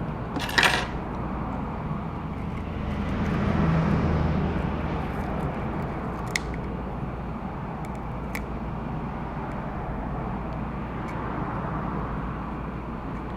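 Steady low background rumble that swells for a couple of seconds and fades back, with a short rustle just after the start and a few small sharp clicks, typical of handling an adhesive strip and tweezers on the device.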